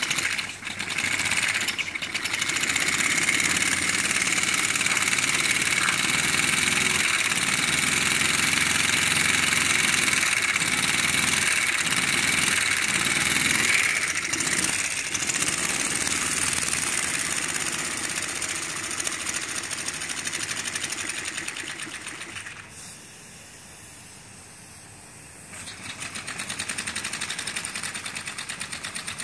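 3D-printed plastic model steam engine running fast on compressed air, a rapid steady chatter of piston strokes and air exhaust, now running in reverse after its reversing lever has been pulled over. About 22 seconds in, the throttle is cut and it goes much quieter for about three seconds, then it picks up again a little softer than before.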